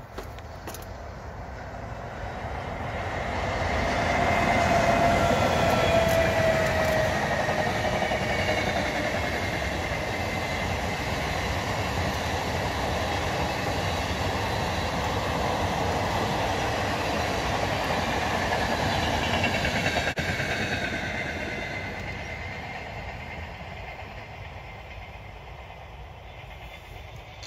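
Venice Simplon-Orient-Express train passing: the sound swells as it approaches, a whine drops in pitch about five seconds in, then the long rake of heavy carriages rolls by with steady wheel-on-rail noise and clickety-clack before fading away near the end.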